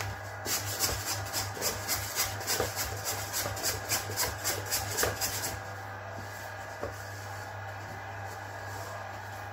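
Stand mixer kneading a stiff bread dough with its dough hook: a steady motor hum, with a rhythmic scraping of about three strokes a second that stops after about five seconds, leaving only the hum. The dough is being worked until it is fairly firm and all the flour is taken up.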